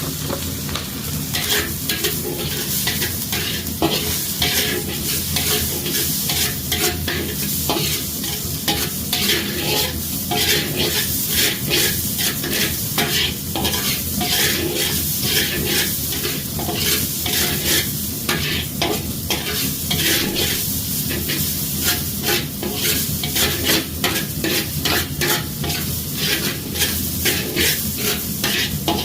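Veg fried rice stir-fried in a wok: a steady sizzle with quick, irregular scrapes and clinks of the metal spatula against the pan, several a second.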